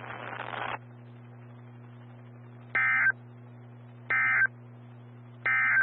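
NOAA Weather Radio SAME data signal: three short, identical bursts of warbling digital tones about a second and a half apart, the End Of Message code that closes the Required Weekly Test. A steady low hum runs underneath.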